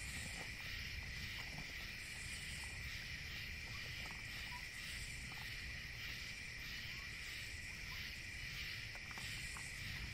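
Night chorus of crickets and other insects: a steady high trill with a softer pulsing call laid over it, and a few faint ticks.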